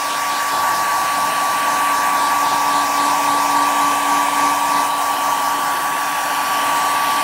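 Hair dryer running at a steady speed: an even rush of air with a constant motor whine.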